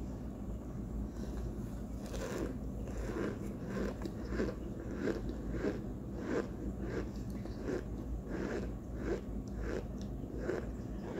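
Chunks of cornstarch being bitten and chewed with a dry, crunching sound, about two chews a second, starting about two seconds in.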